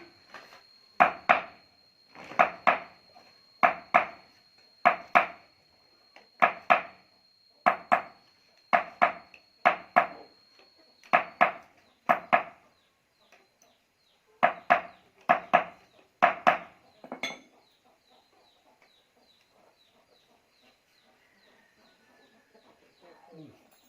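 Repeated sharp knocks, mostly in quick pairs about once a second, stopping about 17 seconds in; a faint high steady whine runs under the first half.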